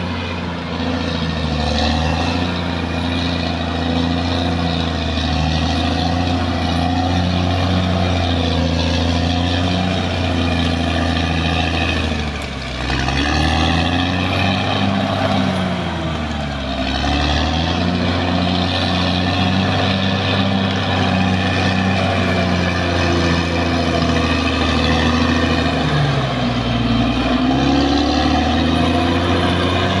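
CAT D6R XL bulldozer's diesel engine running hard as the dozer pushes earth, a steady deep drone whose revs sag and pick back up about three times, around the middle and near the end.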